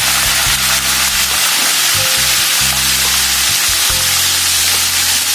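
A whole tilapia deep-frying in hot oil in a wok: a dense, steady sizzle. Background music with a steady low bass line plays under it.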